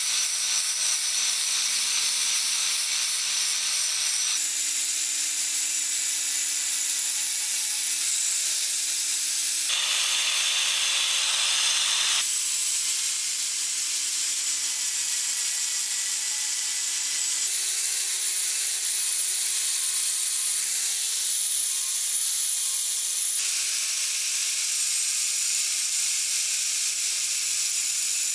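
Angle grinder running at speed, its abrasive disc grinding the steel jaws of old rusty pincers: a steady hiss of grinding over the motor's whine, which jumps abruptly in pitch several times.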